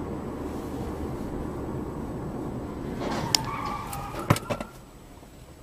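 Car on the move, a steady low road and engine noise, with a few sharp knocks and clicks about three to four and a half seconds in.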